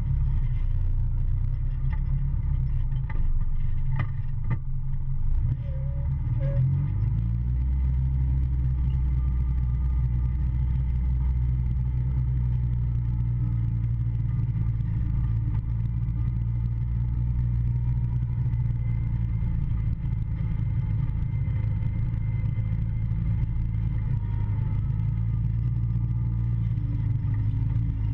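Polaris Ranger side-by-side running under way, a steady low engine drone, with a few knocks and rattles in the first few seconds.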